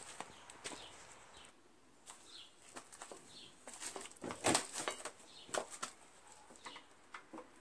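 Scattered clicks and knocks from a screwdriver and hands working on a lawn mower's front caster-wheel housing, the loudest knocks about halfway through.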